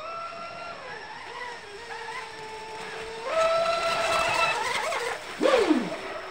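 RC speedboat's brushless electric motor whining at speed, with a hiss of water spray. The whine steps up in pitch about three seconds in as it accelerates, and near the end the pitch swoops sharply down.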